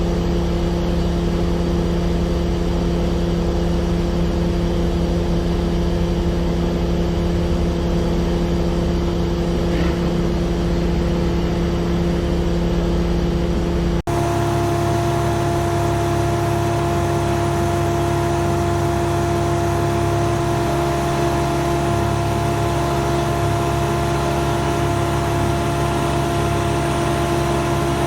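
Engine running at a steady speed, with an abrupt change in its sound about halfway through.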